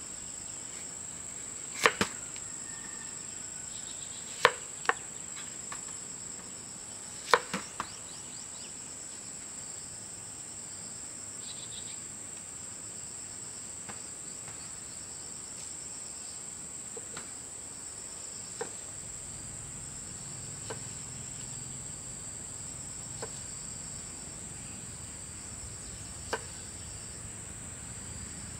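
Insects chirring as a steady high drone, with a few sharp knocks, most of them in the first eight seconds and a few fainter ones after.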